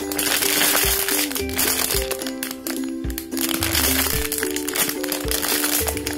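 Background music with a simple stepping melody and a steady low beat, over the crinkling of a clear plastic bag as the soft foam squishy inside it is squeezed.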